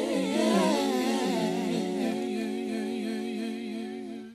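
Closing bars of a slow R&B song: layered, wordless male vocal harmonies hum held notes with vibrato over a steady low note. They fade steadily and end just after four seconds.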